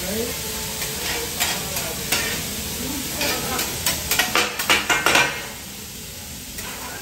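Diced chicken and beef sizzling on a hibachi teppanyaki griddle, with sharp clacks and scrapes of metal utensils on the hot plate, thickest in a quick run about four to five seconds in. After that only the sizzle remains, quieter.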